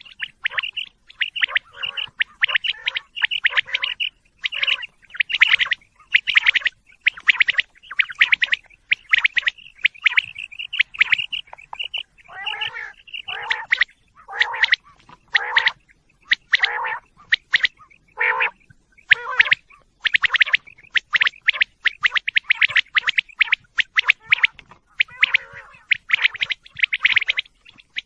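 Common quail calling: quick bursts of sharp, high chirping notes, repeated over and over with only short gaps between them.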